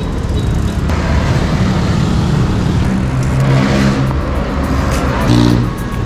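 City road traffic: motor vehicles running and passing close by, a steady low rumble with engine notes rising briefly about three seconds in and again near the end.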